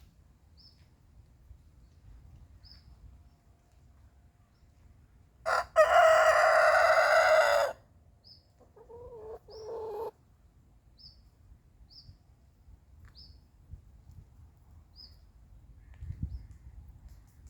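Rooster crowing once, a loud call of about two seconds near the middle, followed by a few shorter, lower calls; this is his territorial morning crowing. Faint high chirps of small birds come every second or two.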